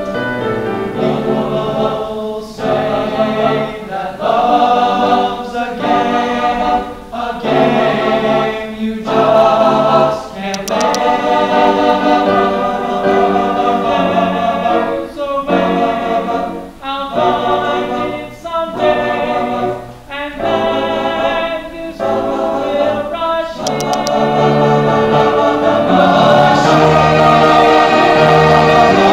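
Men's choir singing in harmony, in short phrases with brief breaks, swelling into a loud held passage near the end.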